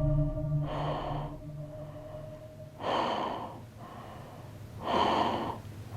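Heavy breathing close to the ear: three loud breaths about two seconds apart, the eerie breath heard at the ear while the listener is holding her own breath. A low sustained tone fades out about three seconds in.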